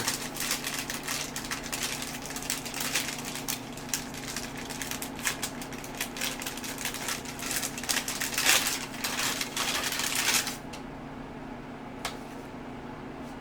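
Packaging rustling and crinkling with many quick small crackles and clicks as a power cable is unpacked by hand, dying away about ten seconds in. A faint steady hum runs underneath.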